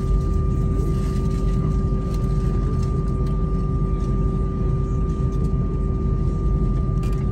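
Airbus A320's engines at taxi idle, heard inside the cabin while the aircraft taxis on the ground. A steady low rumble carries two constant hums.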